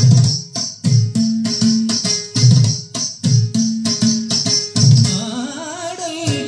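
Background music with a steady beat of plucked strings and percussion; near the end a wavering melody line comes in.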